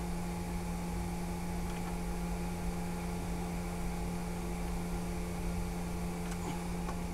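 Steady electrical or machinery hum, a constant low drone with fainter higher tones and a hiss over it. A couple of faint small clicks near the end come from a screwdriver and wires at a drive's terminal block.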